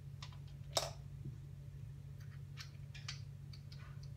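Small metal LED flashlight being put back together: one sharp click about a second in as the lithium-ion battery goes into the body, then a run of light clicks and scrapes as the parts are fitted and screwed together. A low steady hum runs underneath.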